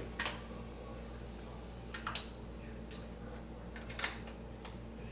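A few short clicks and knocks as kitchen things are handled at the counter, three in all, spaced about two seconds apart, over a steady low hum.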